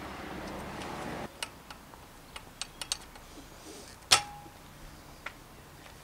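Scattered light metallic clicks from hand tools and small metal bike parts being handled, with one sharp clink about four seconds in that rings briefly. A steady background hiss cuts off just over a second in.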